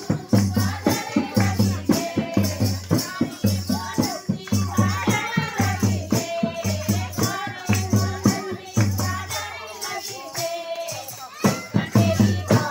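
Live kirtan music: women singing a devotional song over a steady drum beat and hand clapping, with shaken rattle-like percussion. The drum beat stops for about two seconds near the end, then comes back in.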